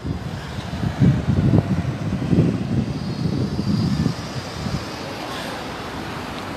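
Cars passing slowly close by in a queue of traffic, with low, uneven rumbling for the first four seconds, then a steadier hiss.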